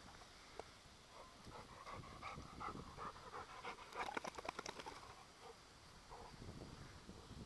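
A retriever panting close by in quick, rapid breaths, heaviest about halfway through.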